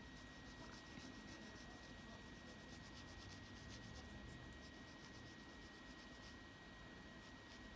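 Faint scratching of a coloured pencil shading on paper in quick, repeated short strokes.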